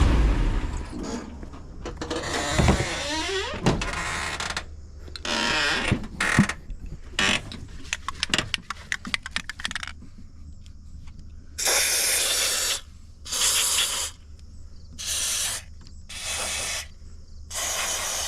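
Aerosol can of white lithium grease spraying in five short hissing bursts onto a door hinge, from about twelve seconds in, to stop it squeaking. Before that, the door moves with knocks and a few squeaks from the dry hinge.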